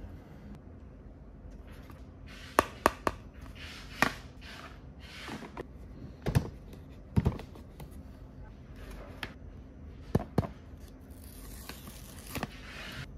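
Hard plastic toy kitchen parts handled and snapped into place, giving a series of sharp clicks and knocks with short rustles between them. Near the end, the paper backing of a sticker sheet is peeled off with a rustling, tearing sound.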